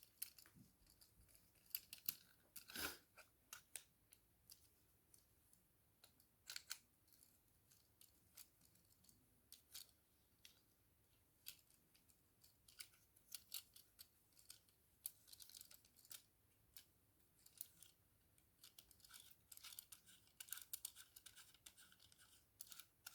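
Faint handling noises from a small gadget being worked by hand: scattered sharp clicks and scratchy ticks, thicker near the end.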